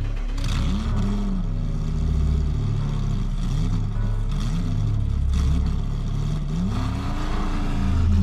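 A car engine revving up and down repeatedly, over a steady low hum.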